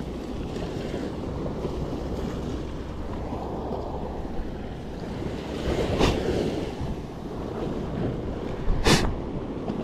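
Surf washing up a sand beach, with wind buffeting the microphone, and two sharp knocks about three seconds apart, the second, near the end, the louder.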